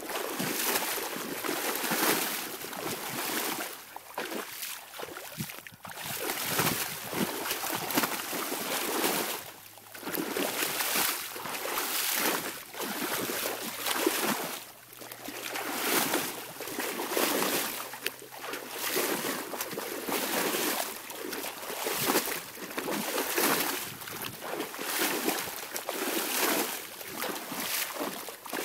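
Water splashing and rushing, swelling and dipping every second or two, as a dog splashes about playing in it.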